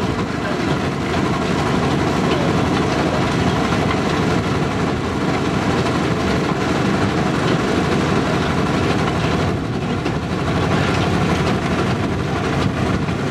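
Bucket-chain clay dredger running: its large diesel motor drones steadily under a continuous rattle of the circulating chain and buckets as it digs clay.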